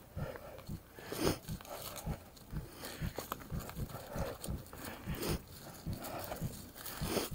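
Mountain bike ridden over a bumpy dirt trail: the frame, chain and suspension knock and rattle several times a second, with sharper clatters mixed in as the wheels hit bumps.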